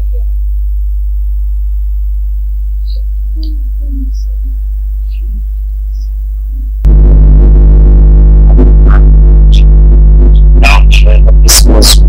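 Loud, steady electrical mains hum with a buzzing stack of overtones, the kind a sound system or microphone line picks up. About seven seconds in it suddenly gets louder and harsher, with faint voices over it near the end.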